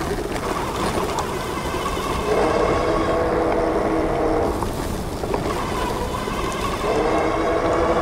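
Super73 RX electric bike under way at road speed: a steady hub-motor whine that shifts pitch a couple of times, over the rush of wind on the microphone and the fat tyres on asphalt.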